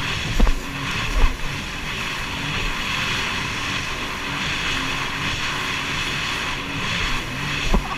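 Jet ski engine running steadily at cruising speed, with the rush of water and spray over it. A few low thumps come near the start and again near the end.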